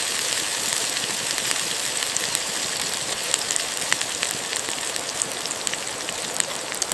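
Salmon fillet sizzling on a hot stone over a campfire: a steady hiss with scattered sharp crackles and pops from the fire.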